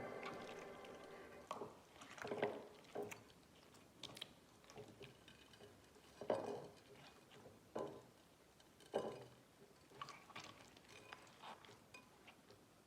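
Slime being squished and stretched by hand, giving faint, irregular wet squelches and small sticky pops about once a second. The tail of the background music fades out in the first second or so.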